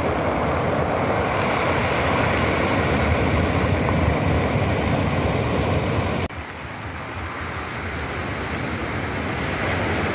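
Sea surf breaking and washing over a pebble beach, a steady rush of noise that drops suddenly about six seconds in and then slowly builds again.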